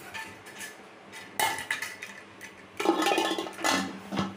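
Stainless-steel pressure cooker lid being put on and clamped shut: several metal clanks and scrapes, the longest and loudest cluster about three seconds in.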